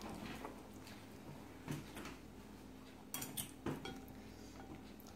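A few light, sharp clicks and clinks, scattered a second or so apart, over quiet room tone.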